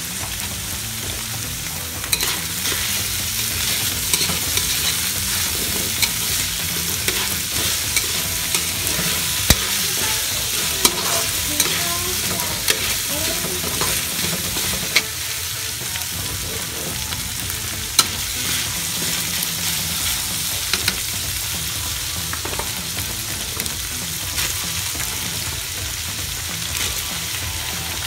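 Ground pork and diced potatoes sizzling in a wok as a spatula stirs and scrapes them, knocking sharply against the metal pan now and then.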